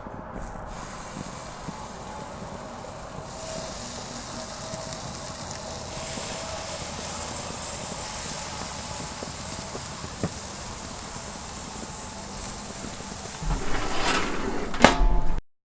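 Bacon-wrapped pigeon breasts sizzling on a grill: a steady hiss that grows brighter a few seconds in, with a few louder knocks and clicks near the end.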